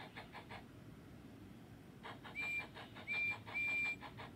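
Recorded steam-train sound effect from a toy phone's small speaker. Rhythmic chuffing, then a train whistle blowing three times, two short toots and a longer one.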